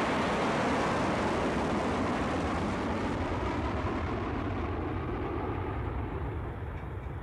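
Steady rushing noise of jet aircraft at an airport, slowly fading toward the end.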